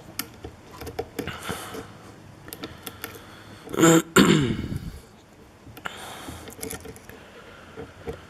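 A person clears their throat once, loudly, about four seconds in. Around it come scattered faint clicks and ticks of lock picks and a tension tool working in a pin-tumbler lock cylinder.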